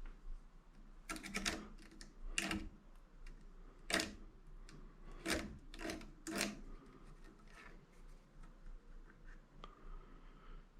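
Sharp metallic clicks and snaps from hand tools working on a scrap electric motor being stripped for its copper: about seven, some in quick clusters, over a low steady hum.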